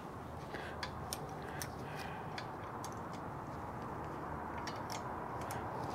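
Ratchet wrench with a deep socket clicking in light, irregular runs, several clicks a second, as a double-nutted stud is backed out of an outboard's housing.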